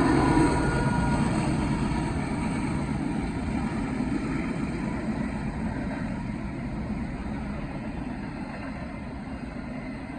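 Union Pacific double-stack freight train rolling by on the rails and receding, its steady rumble of wheels fading away.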